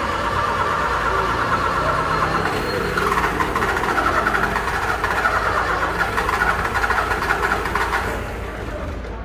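Car starter clicking rapidly, 'tec tec tec', while the key is held in the start position and the engine fails to start: a fault in the starting system. The clicking eases off and gets quieter about eight seconds in.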